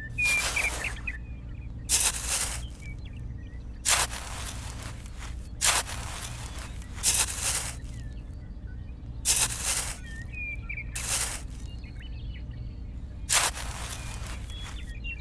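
A small hand trowel scraping and digging into packed sand, in about eight short scrapes one to two seconds apart, with faint birds chirping between them.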